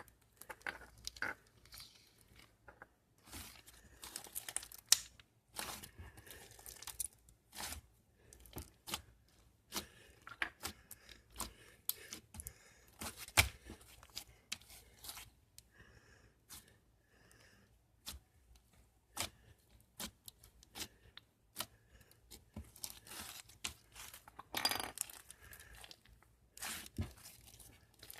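Close handling noises: crinkling and tearing of a crinkly material, with many irregular small clicks and taps.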